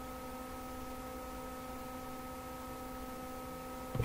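Steady electrical hum made of several fixed, unchanging tones, with a short knock just before the end.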